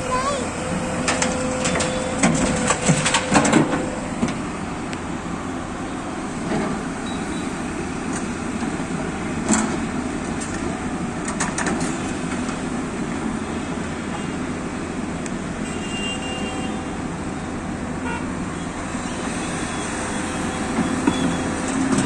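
Crawler excavator's diesel engine running steadily as it digs soil and loads a tipper truck, with bursts of clattering knocks from the bucket and falling earth, most in the first few seconds.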